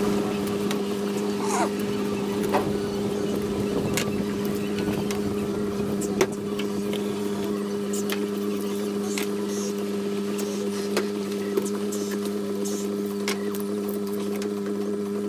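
A steady low motor hum holds level throughout. Over it come a few sharp clicks and cracks from a knife cutting snapper wings on a plastic cutting board.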